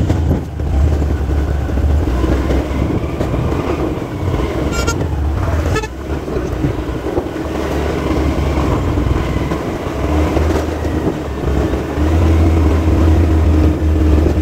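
Motorcycle engine running steadily while riding, with wind rumble on the microphone. A short horn toot sounds about five seconds in.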